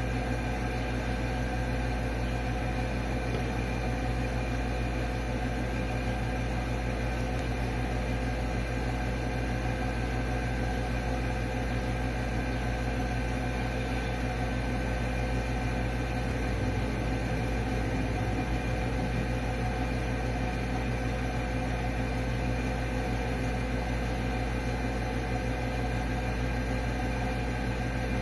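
A steady mechanical hum with several constant tones over an even background noise, unchanging throughout.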